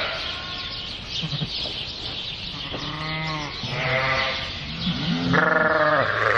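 Sheep bleating in a barn crowded with ewes and lambs: several separate bleats, the longest and loudest near the end.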